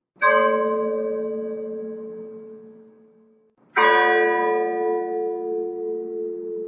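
Church bell tolled slowly as a funeral knell: two strikes about three and a half seconds apart, each ringing out and fading away slowly.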